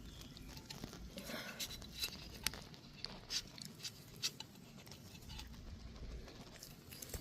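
Faint, scattered clicks and small rustles of pliers working at the old starter rope, trying to cut through it.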